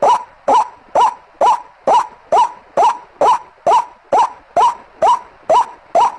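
White-breasted waterhen (ruak-ruak) lure call: short loud notes, each rising quickly in pitch, repeated at a perfectly steady pace of about two a second. This is a looped recording used to draw waterhens in.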